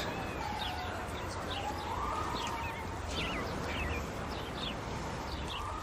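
Small birds chirping: many short, high, downward chirps scattered throughout, over a low steady background rumble of outdoor ambience.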